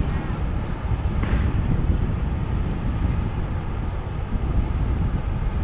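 Boat engines passing as a steady low rumble, mixed with wind buffeting the microphone.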